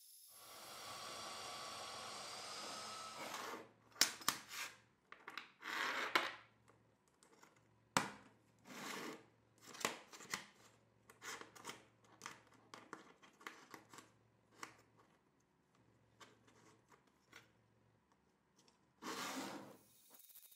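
A metal-cutting band saw runs through a Damascus steel billet for the first few seconds, then a string of short scrapes, clinks and rubs as small steel billet pieces and thin mild-steel sheet are handled and slid on a wooden bench, with a longer scrape near the end.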